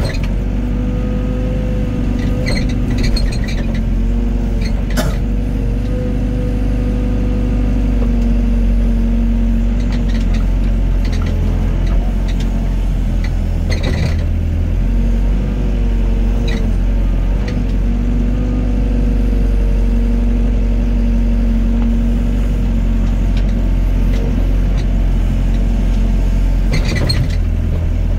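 Excavator's diesel engine running steadily, its pitch dipping and lifting as the hydraulics take load while digging and loading sand. A few sharp metal knocks come through, about five seconds in, around the middle and near the end.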